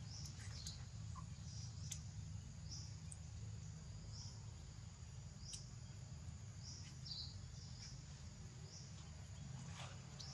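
Outdoor ambience: short, high chirps repeating irregularly about once a second over a steady low rumble, with a few faint clicks.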